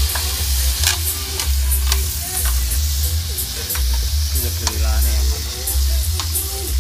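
Meat sizzling on a round grill pan over a portable gas stove, with metal tongs clicking and scraping against the pan many times as the slices are turned.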